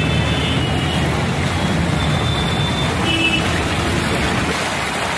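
Steady traffic noise on a flooded road: vehicle engines running, with a constant rushing noise and a low rumble.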